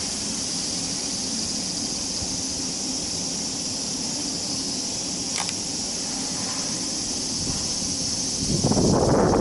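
Steady high-pitched chorus of summer insects over a low steady hum, with a brief click about five seconds in and a louder burst of rustling noise near the end.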